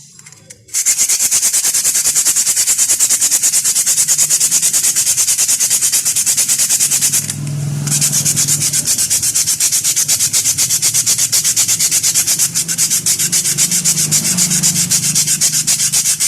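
A motorcycle disc brake pad being rubbed back and forth on sandpaper in quick, even strokes, with a brief pause about seven seconds in. The pad's surface is being scoured to remove embedded dust and grit, the cause of the brake squeal.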